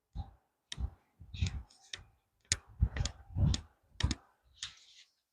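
A half-inch drive ratchet clicking in short, uneven strokes on a hub assembly bolt, with light metal knocks: about a dozen separate clicks over five seconds.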